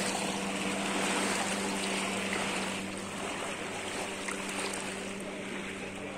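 A boat engine running at a steady pitch under an even rush of water and wind, easing slightly in level about halfway through.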